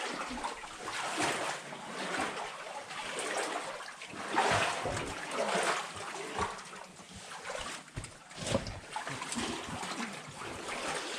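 Water splashing and sloshing in uneven surges about a second apart, as someone wades through a flooded mine tunnel.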